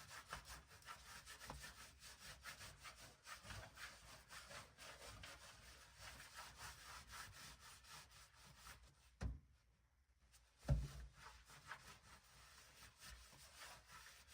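Faint repeated rubbing and scraping on the car's floor as loosened sound-deadener residue is worked off by hand. About nine seconds in come two dull knocks, with a moment of silence between them.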